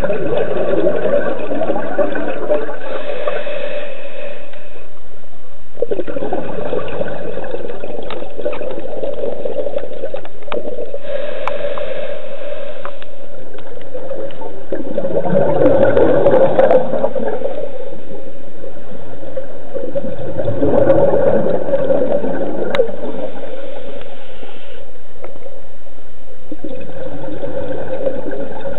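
Scuba regulator exhaust bubbles burbling underwater with each breath out, five times a few seconds apart, with a fainter hiss between them.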